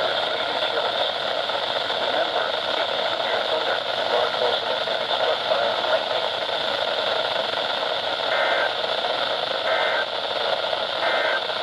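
Weather radio receiver's steady static hiss. From about eight seconds in come three short two-tone data bursts about a second and a half apart, typical of the EAS SAME end-of-message code that closes a NOAA Weather Radio alert.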